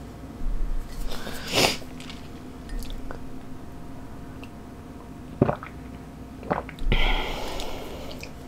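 Close-miked handling noises: a few brief rustles and scrapes, with a sharp tap about five and a half seconds in, over a faint steady hum.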